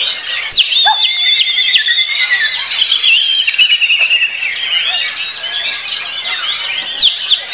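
An oriental magpie-robin singing in its cage: a fast, varied run of whistles and trills. Many other caged songbirds sing at once around it.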